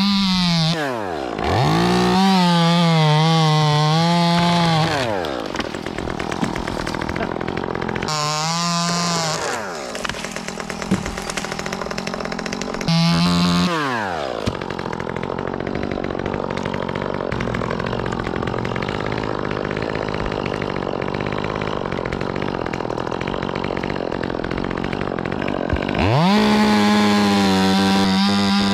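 Gas chainsaw revved to full throttle in bursts of a second or a few seconds, about four times, dropping back to a lower running speed in between.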